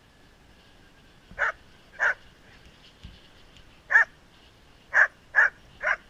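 A dog barking six times in short, irregularly spaced barks, the last three in quick succession.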